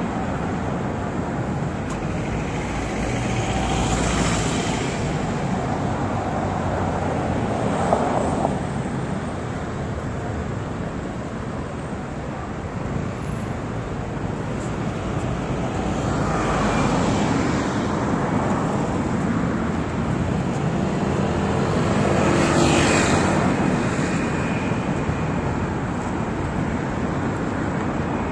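City street traffic: a steady rumble of vehicles, with several passing close by, swelling and fading about four, eight, seventeen and twenty-three seconds in.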